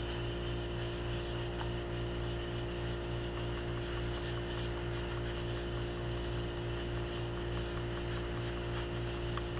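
Vinyl-gloved fingertips rubbing damp cleaning paste over a soft-fired porcelain greenware doll head: a faint, steady rubbing under a constant hum.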